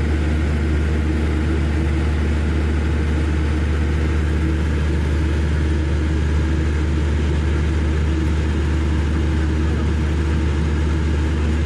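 An engine running steadily, a constant low hum with no change in speed.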